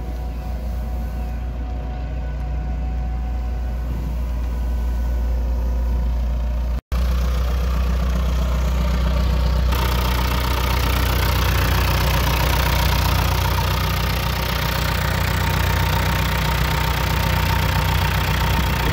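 Street sweeper's John Deere 4039 four-cylinder turbo diesel running steadily. After a brief cut about seven seconds in, it is heard close up at the open engine bay, with a louder rushing noise joining about ten seconds in.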